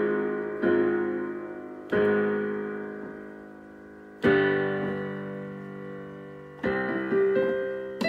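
Music: solo piano playing slow chords, each struck and left to ring and fade, with a few quicker notes near the end.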